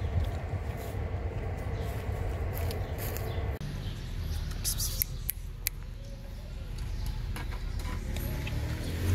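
Low rumbling outdoor background noise, which changes abruptly a few seconds in to a quieter stretch with scattered light clicks and rustles.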